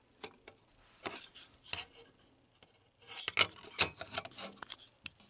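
Small hard parts, such as a plug-in relay and a circuit board, handled on a workbench: scattered sharp clicks and clatters, busiest from about three seconds in.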